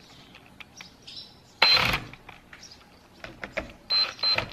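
Short bursts of ratchet clicking as the accumulator housing bolts on a 4L80E valve body are snugged down only to light contact: one burst about a second and a half in, then two or three quick ones near the end.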